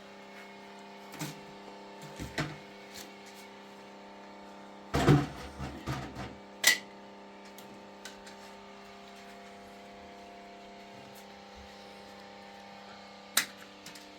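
A steady hum with scattered knocks and clatters: a loud cluster of thumps about five seconds in, and sharp clicks about a second later and again near the end.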